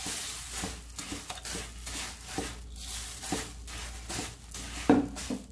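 Puffed rice poured into a pan of melted jaggery and ghee and stirred with a wooden spatula: a rush of rustling grains at the start, then a run of irregular scrapes and rustles as the spatula turns the rice, the sharpest one near the end.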